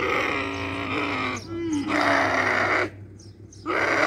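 Dromedary camels bellowing while being unloaded from a truck: two long, harsh calls of about a second each, with a third starting near the end.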